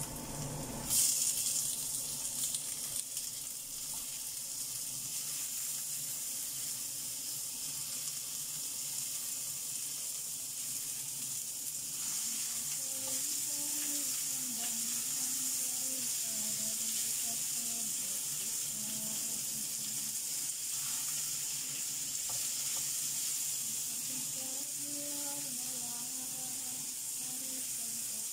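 Food frying in hot oil in a non-stick frying pan, a steady sizzle that flares up about a second in and carries on while it is stirred with a spatula.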